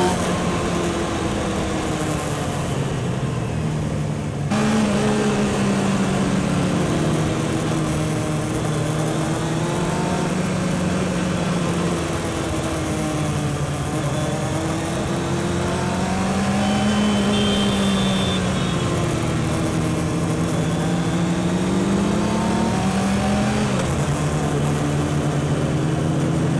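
A 1997 Honda CBR600F's inline-four engine running under way among many other motorcycles, loud throughout. Its pitch rises and falls again and again with the throttle and gear changes.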